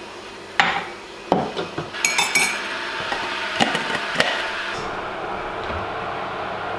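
Crockery and cutlery knocking and clinking while coffee is made: several sharp knocks and a brief ringing clink about two seconds in. A steady rushing noise sets in at about the same time and carries on.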